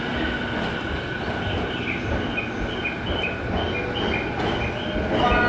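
Train running on the rails, heard from inside the vestibule by the door, as it slows into a station. A steady rumble runs throughout, with a run of short high squeals from about a second and a half in.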